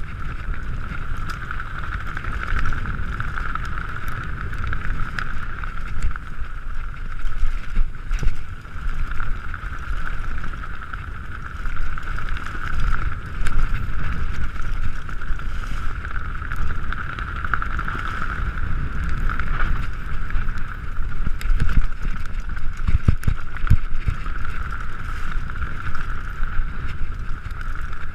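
Mountain bike descending fast on a dirt forest trail: low rumble of tyres and wind buffeting the rider-mounted camera's microphone, scattered knocks and rattles over bumps, with a steady high buzz from the bike throughout.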